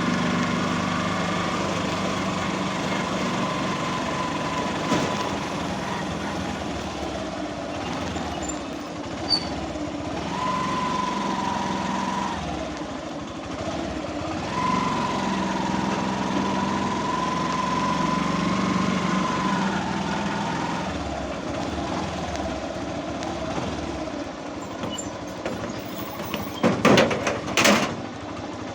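A motor vehicle's engine running steadily, with a whine that holds, dips and comes back in pitch several times. A few sharp knocks near the end.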